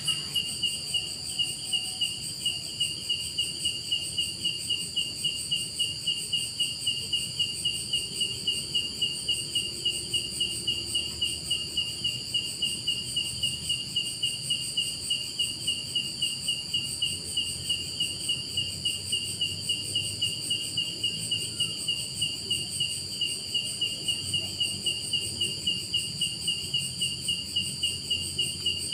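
Night insect chorus: a cricket chirping steadily, about three chirps a second, over a continuous high-pitched trill from other insects.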